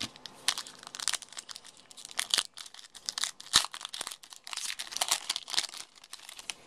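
Trading-card pack wrapper being torn open and crinkled by hand: a dense run of sharp, irregular crackles, loudest about halfway through.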